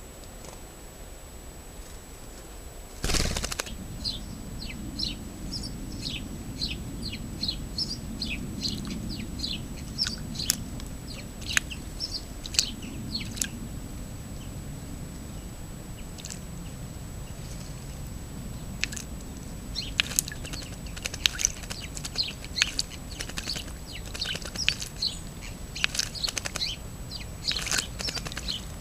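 Song thrush bathing in a shallow basin, fluttering its wings in the water and throwing off bursts of splashing in irregular clusters. A single sharp click comes about three seconds in, and a faint steady high whine runs underneath.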